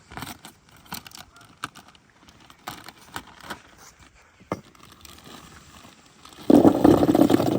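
Scattered light clicks and knocks of objects being handled, then a loud burst of rustling noise about six and a half seconds in.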